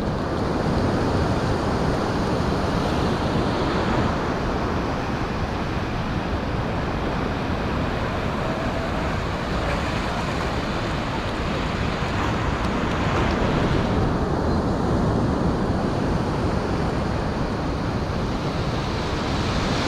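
Ocean surf breaking and washing up the beach as a steady rush of noise, with wind buffeting the microphone.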